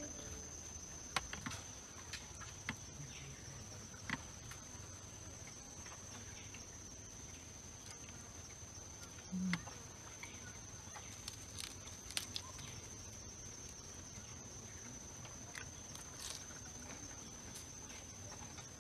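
Light clicks and knocks of metal trays and bowls being handled and set down on a bamboo floor, over a steady high-pitched whine.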